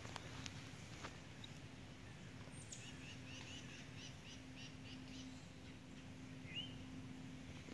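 A bird calling: a quick series of about eight short chirps, some five a second, a few seconds in, then a single upward chirp near the end, over a faint steady low hum.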